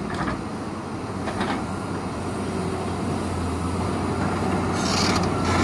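Terex RH30F hydraulic mining excavator's diesel engine running with a steady low hum that swells slowly as the boom lifts the ripper off the rock. A brief rush of hissing noise comes near the end.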